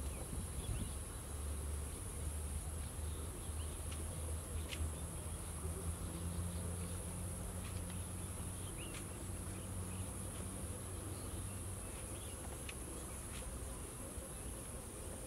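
Steady high-pitched chorus of insects buzzing, with a steady low hum underneath and a few faint clicks.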